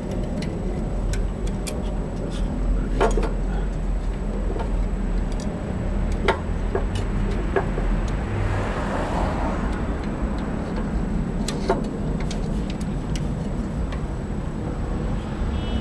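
Scattered small clicks and taps of metal mower parts and tools being handled during carburetor reassembly, over a steady low rumble.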